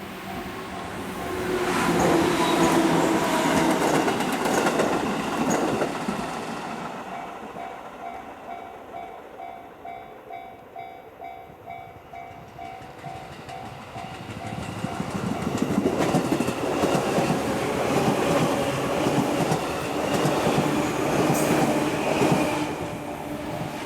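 Japanese level-crossing warning bell ringing in a steady repeating ding, about twice a second. Over it, one JR Joetsu Line train passes loudly about two seconds in, and a second train passes from about fifteen seconds in.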